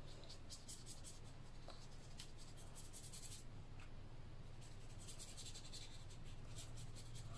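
A watercolour brush stroking across watercolour paper: soft, scratchy brushing in quick runs of strokes, with a short break about halfway through. A faint steady low hum lies underneath.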